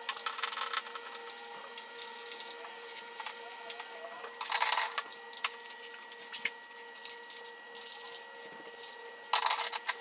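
Quick clicks and clatter of hand tools and parts being handled on the engine's cam cover. Two short louder rushes of noise come about four and a half and nine and a half seconds in, over a steady hum.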